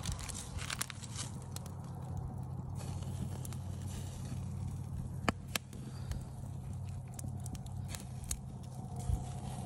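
Campfire crackling, with scattered sharp pops over a steady low hum.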